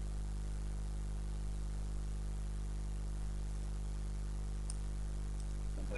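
Steady low electrical hum with a layer of hiss from the recording setup, with a couple of faint short clicks near the end.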